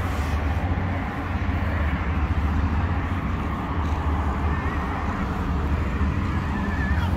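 Steady low outdoor rumble, like distant traffic or wind on the microphone, with no clear break.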